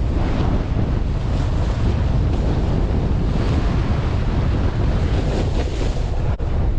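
Strong wind gusts blowing across the microphone: a steady, heavy rush of noise, strongest in the low end.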